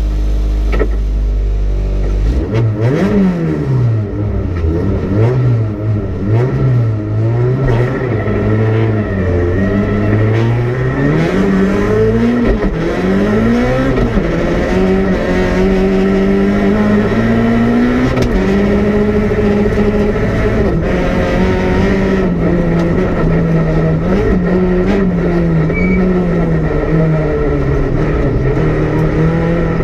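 Peugeot 208 R2 rally car's engine heard from inside the cabin, driven hard. A steady low note for the first two seconds gives way to revs that climb and drop sharply again and again through the gear changes, then stay high with smaller rises and dips.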